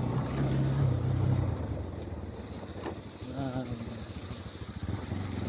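Vehicle engine running under way on a rough road, its drone rising for the first second or so and then easing off before building again near the end.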